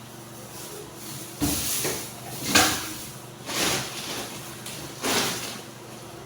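Groceries and their packaging being handled, rustling in four short bursts about a second apart.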